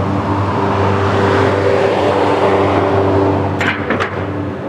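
Riding noise from a Polytron Fox R electric scooter moving slowly: a steady low hum under wind and road noise, with a few short clicks near the end.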